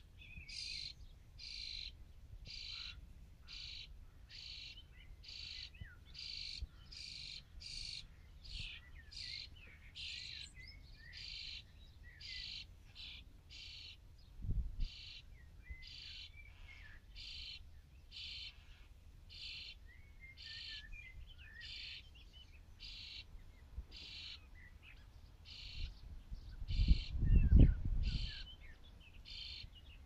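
Nearly fledged starling chicks begging for food: short, raspy calls repeated steadily, about one and a half a second. About halfway there is a brief low thump, and near the end a louder low rumble of about two seconds.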